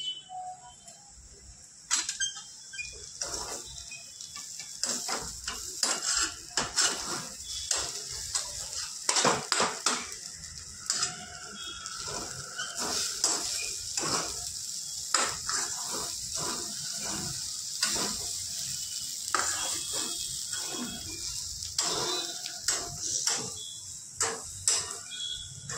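A steel spatula scraping and knocking against a frying pan as crumbled roti pieces are stirred and tossed. There is a steady light sizzle from the pan. The stirring starts about two seconds in and keeps up in quick, uneven strokes.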